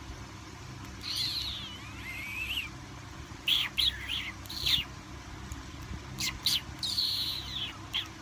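Sleeping infant macaque squeaking and chirping in its sleep: a string of short high-pitched calls, several falling in pitch, starting about a second in.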